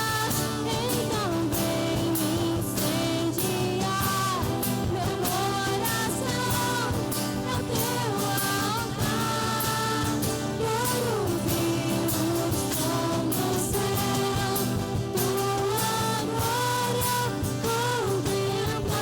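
Worship song sung by a vocalist over a band, with a steady beat.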